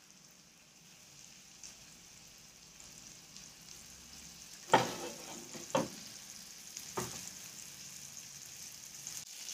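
Hot oil sizzling steadily in a wide pan as masala-coated surmai (seer fish) steaks are laid in to shallow-fry, with three sharper, louder bursts in the second half.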